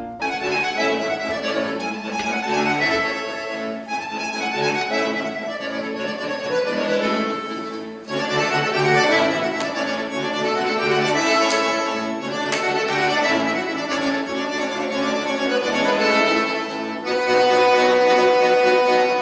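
Accordion playing a lively piece in quick runs of notes, ending on a loud held chord near the end.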